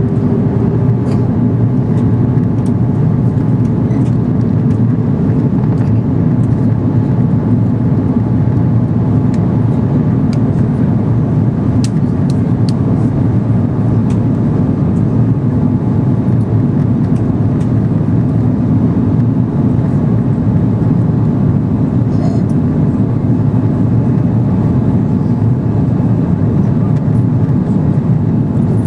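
Airbus A330 cabin noise in flight: a steady, loud low drone of the engines and airflow, with a few faint clicks.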